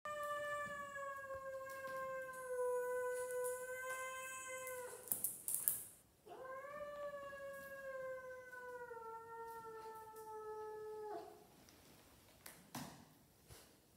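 Cat yowling in two long, drawn-out calls of about five seconds each, the pitch sinking slowly through each; the second call starts with a short rise. A few short knocks and scuffs come between the calls and near the end.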